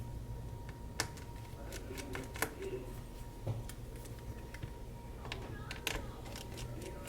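Scattered light clicks and taps of small tools and parts being worked by hand while a cover is taken off inside an opened MacBook Pro A2338, about seven or eight separate clicks spread irregularly, over a faint steady hum.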